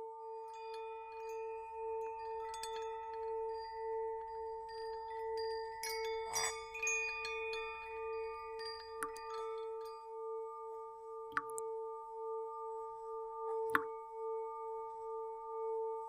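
Ambient chime music: a low held tone pulsing about twice a second under a steadier higher tone, with scattered bright chime notes and small clicks, busiest about six seconds in.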